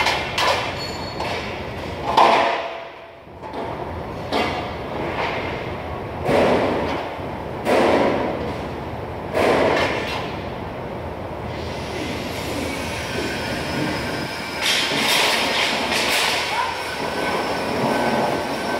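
Steady workshop machinery noise, with a loud burst of hiss and clatter every second or two and a faint high whine in the second half.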